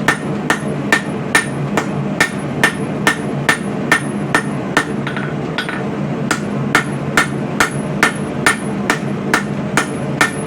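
A 3-pound blacksmith's hammer striking hot coil-spring steel on an anvil, flattening and widening the blade, in a steady rhythm of about two ringing blows a second with a short pause in the middle. A steady low hum runs underneath.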